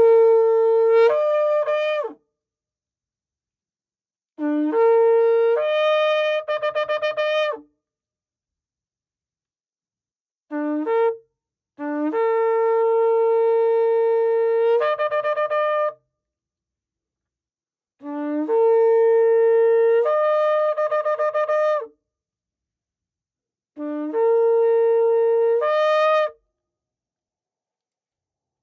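Long curved shofar blown in a series of six blasts with pauses between. Each blast steps up from a low note to a held note and then to a higher one, which often ends in a quick wavering.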